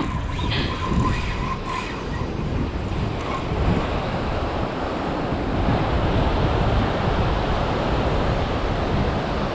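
Surf breaking on a beach, with wind buffeting the microphone. A thin steady tone sounds for about the first two seconds.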